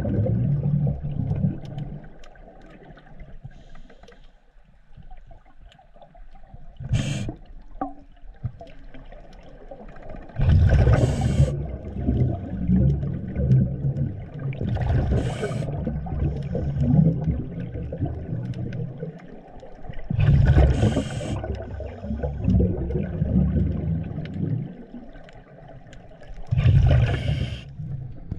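Scuba diver breathing through a regulator underwater: each exhalation releases a rush of exhaust bubbles lasting a second or two, recurring about every five seconds, with quieter stretches of inhaling between.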